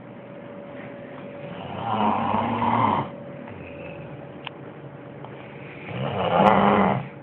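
Snoring: two loud snores, each about a second long, roughly four seconds apart, the first about two seconds in and the second near the end.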